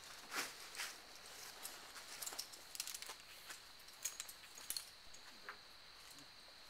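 Scattered faint clicks and clinks of carabiners and quickdraws on a lead climber's harness, with small scuffs against the rock, as he moves up and pulls rope to clip. The sharpest clicks come about half a second in and again around four seconds in.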